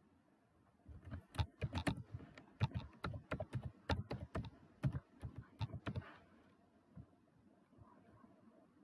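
Computer keyboard being typed on: a quick, uneven run of keystrokes lasting about five seconds, which stops about six seconds in.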